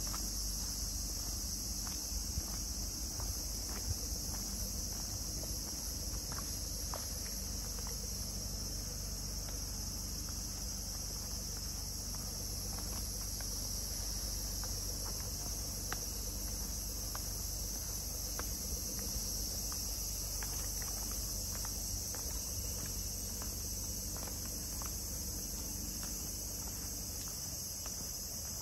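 Steady high-pitched chorus of insects, with scattered light clicks and a low rumble underneath.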